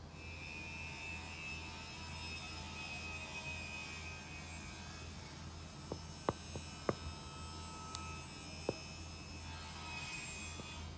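A steady low electrical hum with hiss runs throughout. A few sharp taps of a stylus on the tablet screen come between about six and nine seconds in.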